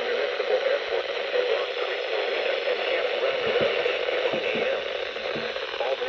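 Reecom weather alert radio's speaker playing a NOAA Weather Radio broadcast as steady static hiss from a weak signal, with the announcer's voice faint under the noise.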